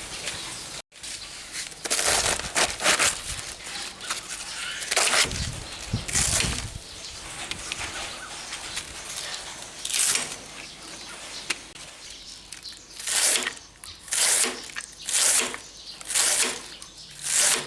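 Kitchen knife slicing through a raw head of cabbage, shredding it fine with crunchy cuts. The cuts are irregular at first and settle into a steady rhythm of about one stroke a second near the end.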